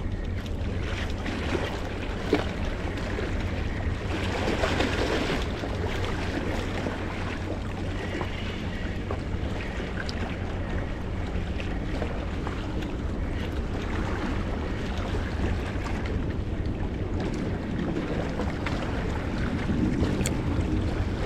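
Steady wind buffeting the microphone with seawater washing against a rocky shore, swelling twice, plus a few faint clicks.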